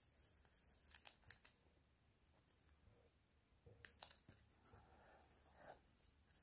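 Faint rasping of embroidery floss being drawn through linen fabric stretched in a wooden hoop, with a few soft ticks of the needle, while buttonhole stitches are worked. A longer, softer rasp comes near the end.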